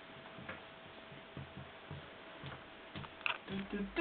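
Quiet small room with scattered faint clicks and soft knocks at irregular intervals over a faint steady hum. A few short low vocal sounds come near the end.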